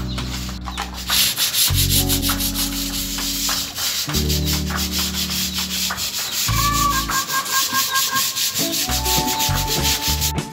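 Sandpaper rubbed by hand over a flat wooden table panel in quick, repeated rasping strokes. Background music with low held notes that change every couple of seconds plays alongside.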